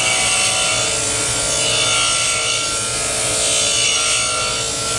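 A cobalt high-speed steel lathe tool bit pressed against the spinning wheel of a DeWalt bench grinder, being ground into a 60-degree threading tool. It gives a steady grinding hiss over the grinder motor's hum.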